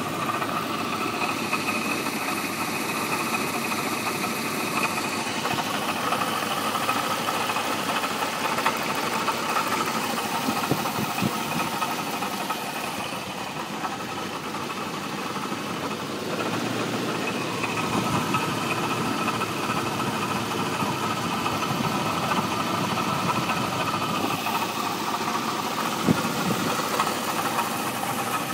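1989 Jeep Cherokee's 4.0-litre inline-six engine idling with a knock, in a high-mileage engine of about 227,000 miles. It runs steadily, dipping slightly in level about halfway through.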